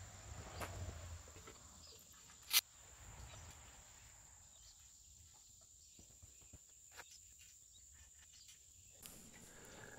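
Faint steady high insect trill, broken by one sharp metal clink about two and a half seconds in and a few lighter clicks later, from steel frame parts and pillow block bearings being handled during assembly.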